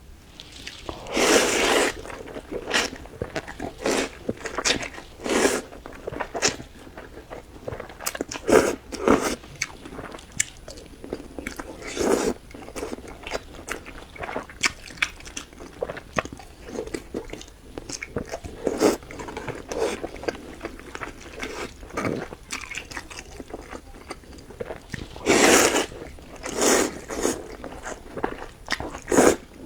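Close-miked eating: chewing and biting with irregular wet mouth clicks and crunchy bites, with louder, longer bites near the start and near the end.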